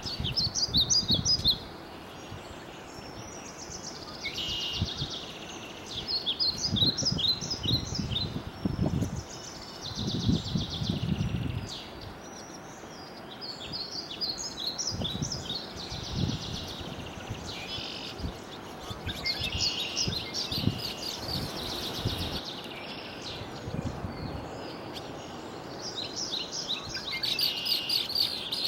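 A songbird singing, repeating a short phrase of quick high notes every few seconds, with intermittent low rumbles underneath.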